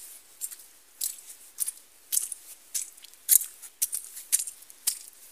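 Footsteps on wet, muddy ground, about two steps a second, each a short crunching squelch.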